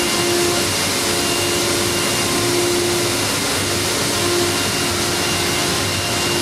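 A PVC profile cutting and machining centre running, with a steady airy whooshing like dust extraction and a faint hum that fades in and out every second or two.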